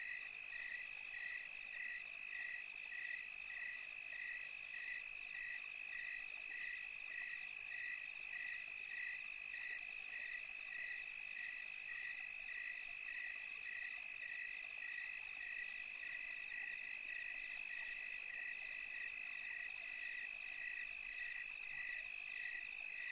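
Night insect chorus: a steady high trill with an evenly repeating chirp on top, a bit over two chirps a second, unchanging throughout.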